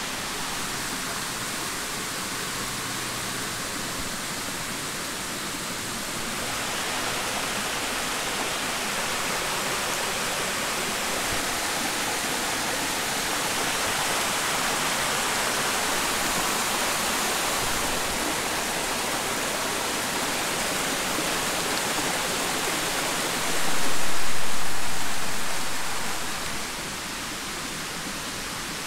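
Steady rushing of a stream running over a granite outcrop, swelling louder for a few seconds near the end.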